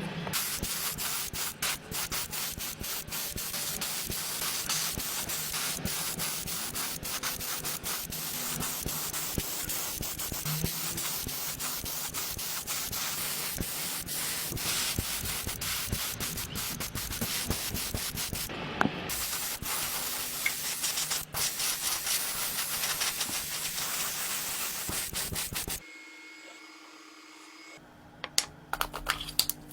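Sanding: abrasive rubbing on a surface in fast, dense strokes. It stops about 26 seconds in, leaving a low hum and a few sharp clicks near the end.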